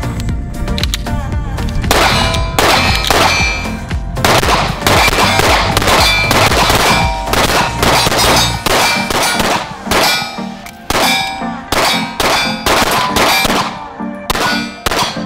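Two pistols fired in rapid, overlapping strings at steel targets, the steel plates ringing with a metallic clang after the hits. The shots come several a second, with brief gaps near the end.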